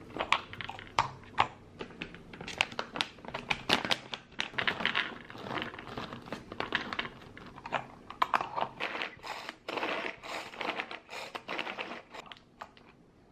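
A plastic bag of peeled garlic cloves crinkling as the cloves are poured and clatter into the plastic bowl of a manual pull-cord food chopper, among sharp clicks of the chopper being handled. Near the end the chopper's cord is pulled to chop the garlic, and the sound stops suddenly.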